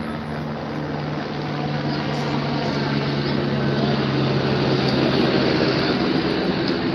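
A low engine drone that grows louder and peaks about five seconds in, its pitch sinking slowly as it passes, over a broad rushing noise.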